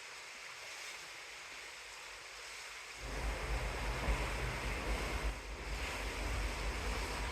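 Wind and the rush of the sea: a steady hiss, joined about three seconds in by louder, uneven low buffeting of wind on the microphone.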